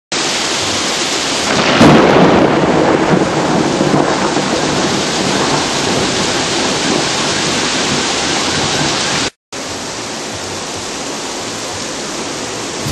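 Heavy rain falling steadily with a loud thunderclap about two seconds in. The sound cuts out for a moment about nine seconds in, then the rain resumes a little quieter.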